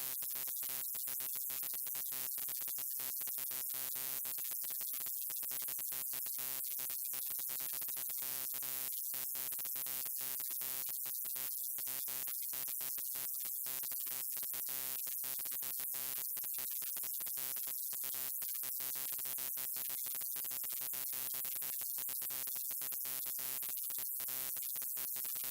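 Steady electrical buzz of a neon light: an even, unchanging hum with many overtones over a bright hiss.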